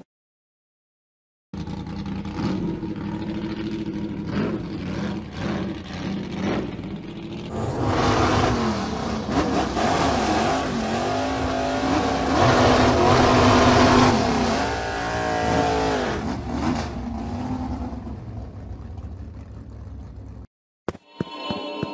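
Car engine sound effect, starting about a second and a half in: an engine running and revving, its pitch rising and falling, loudest a little past the middle. It cuts off suddenly near the end.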